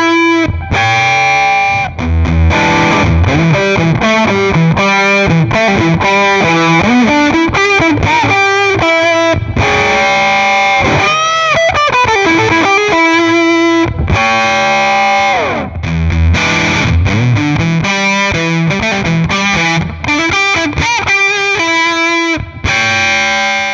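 Electric guitar played through an Electro-Harmonix Op-Amp Big Muff fuzz pedal: heavily distorted riffs and held notes with several string bends, broken by brief gaps between phrases.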